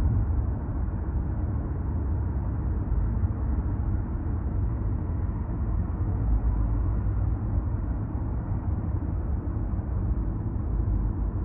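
Steady road and tyre noise with a low rumble from a car driving at speed on an expressway.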